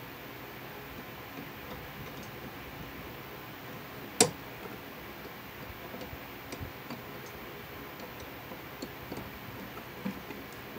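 Faint ticks and clicks of lineman's pliers turning a wire nut onto twisted wires in an electrical box, with one sharper click about four seconds in.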